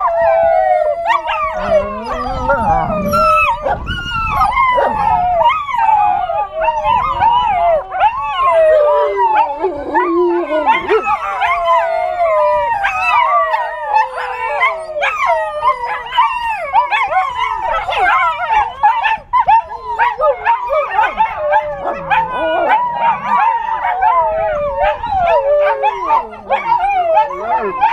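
Eight-week-old American Tundra Shepherd puppies howling together in a chorus of many overlapping, wavering howls, set off by a siren played on a cell phone.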